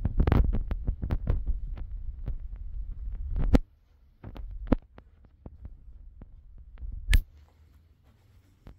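Handling noise on a handheld phone's microphone: low rumbling and rubbing with a quick run of clicks and thumps for the first few seconds, then a few separate clicks, the loudest and sharpest about seven seconds in.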